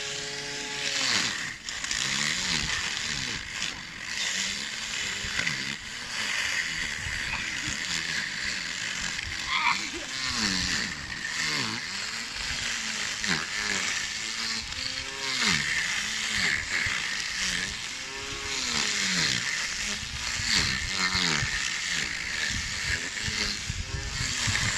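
Small string trimmer running, its spinning line whipping through grass with a steady hiss, the motor's pitch rising and falling over and over as it cuts.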